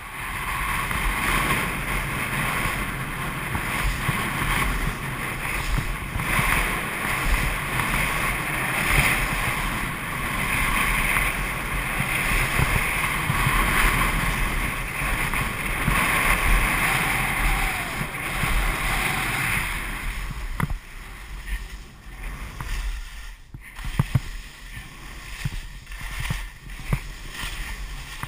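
Skis sliding and scraping over firm groomed snow, a steady rushing hiss with wind rumbling on the microphone. About twenty seconds in the hiss drops away to quieter, uneven scrapes with a few knocks.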